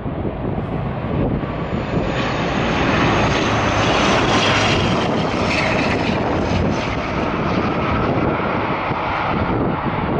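ATR 72 twin-turboprop airliner passing close, its engines and propellers loud and building over the first few seconds before holding steady.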